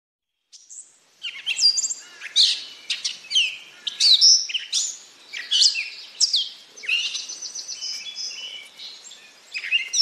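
A songbird singing a long, varied, jumbled song of short high whistled, sweeping and chattering phrases in quick succession, starting about half a second in.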